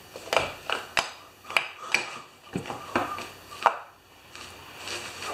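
A run of sharp metallic clanks and knocks, about seven in four seconds at an uneven pace, as a small steel tractor wheel rim is worked against a concrete floor to force the tire bead over the rim.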